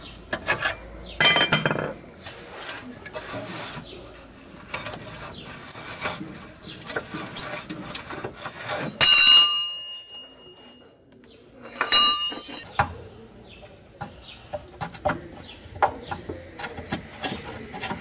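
A socket wrench and loose metal parts clicking, knocking and clinking under a car as the bolts of a broken lower engine mount are undone. Twice, about nine and twelve seconds in, a metal part is struck and rings out briefly.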